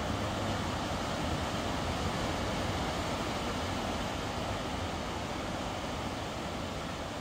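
Steady rushing roar of a river in flood, whitewater pouring over a dam and through rapids.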